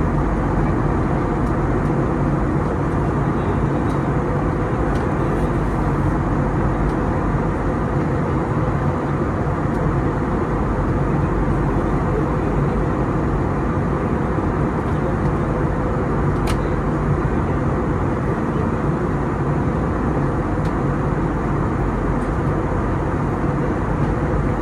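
Steady cabin noise of a turbofan jet airliner in flight: the drone of the engines and the rush of air past the fuselage, heard from inside the passenger cabin.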